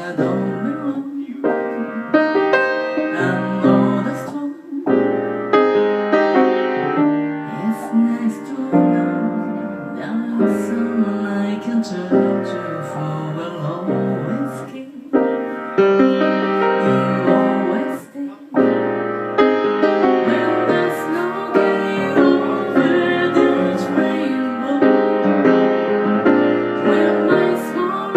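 Piano playing a run of sustained chords, an instrumental passage with no singing.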